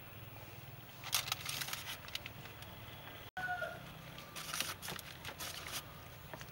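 Wet squelching and foil crinkling as a gloved hand kneads marinade into strips of char siu pork in a foil-lined tray, in two bouts of quick crackles, about a second in and again past the middle. A chicken clucks briefly near the middle.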